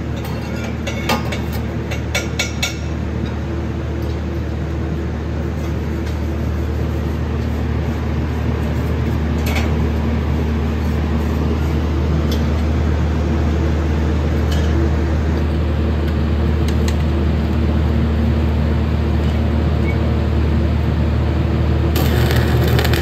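A steady low electrical hum from the workshop runs throughout. A few metal clinks in the first three seconds come as steel test plates are set on the jig. About a second before the end, a stick (shielded metal arc) welding arc strikes and starts crackling.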